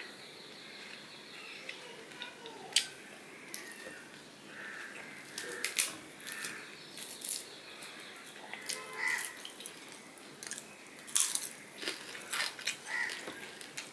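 Fingers picking apart a crisp-fried hilsa fish by hand, with scattered small crackles and clicks from the skin and bones, mixed with chewing.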